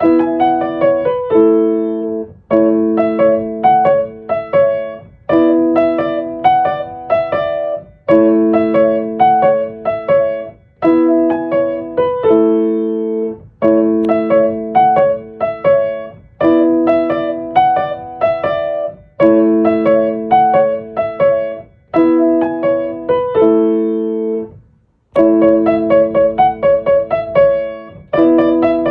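Solo piano music: a gentle piece in repeating phrases of sustained chords under a light melody of short notes, with brief gaps between phrases.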